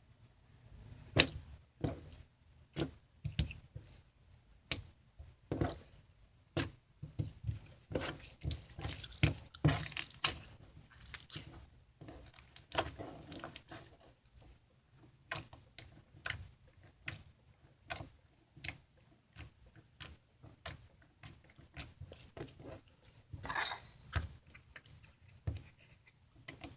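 Sticky homemade slime with sponge mixed in, squeezed and pulled by hand: irregular wet clicks and small squelches, coming in clusters with short pauses.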